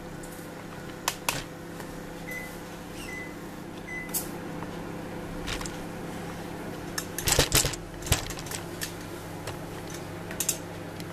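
Cleaning a glass table: a handheld trigger spray bottle squirts a few quick times about seven seconds in, among scattered clicks and cloth rubbing, over a steady low hum.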